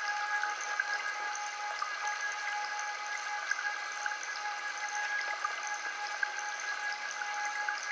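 Brass bowl bell ringing on after a strike, several steady pure tones held together and slowly fading, over a faint crackling hiss.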